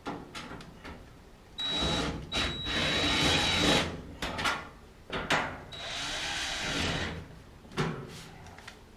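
Power drill-driver running in two bursts, the first about two seconds long and the second a little over a second, each with a steady high motor whine, as screws are driven. Sharp clicks and knocks come between and after the bursts.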